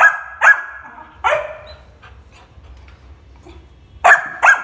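Yellow Labrador puppy barking: two sharp barks in the first second and a half, a pause, then two more in quick succession near the end.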